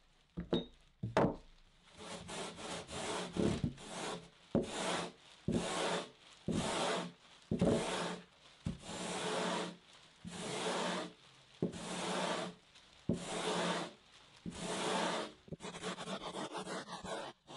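Sandpaper on a 3D-printed convex sanding block rubbed back and forth over the foam bottom of a paddleboard, hand-shaping a concave. It makes a run of rasping strokes, one or two a second, that stop shortly before the end.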